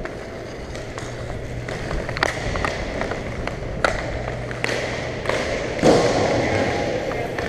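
Inline hockey play on a rink floor: a steady rolling rumble from skate wheels under a low hum, broken by a handful of sharp clacks of sticks and puck, the loudest about six seconds in.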